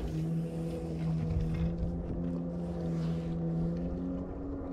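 Boat motor running with a steady hum, its pitch stepping up a little near the end.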